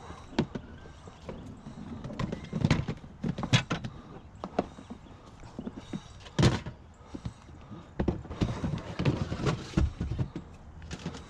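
Irregular knocks, clunks and thuds of junk being handled and moved about in a curbside trash pile, with the loudest hits about a third of the way in, at the middle and near the end.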